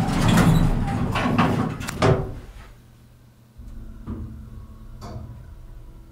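Old Dover elevator's doors sliding shut and closing with a knock about two seconds in. After a short pause a steady low hum starts as the car gets going, with a few faint clicks.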